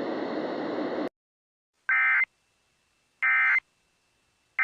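Emergency Alert System end-of-message code: three short bursts of warbling two-tone digital data, about 1.3 s apart, the third starting right at the end. Before them a steady broadcast hiss cuts off abruptly about a second in.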